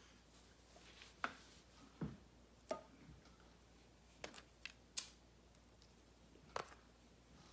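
Small tools being handled and set down on a tabletop: about seven short, sharp clicks and taps at irregular intervals, several close together a little past the middle.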